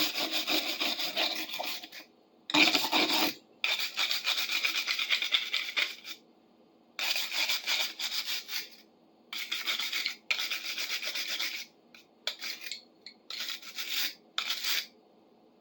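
Hand scrubbing on a rusty metal wrench, scraping off sludge and surface rust. It comes in repeated bouts of quick back-and-forth strokes, each one to two seconds long with short pauses, the bouts shorter and choppier near the end.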